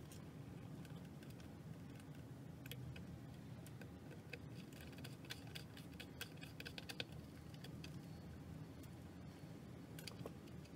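Faint clicks and taps of fingers and a small screwdriver handling wires at a screw terminal on a 3D printer's circuit board, with a quick flurry of clicks about halfway through, over a low steady hum.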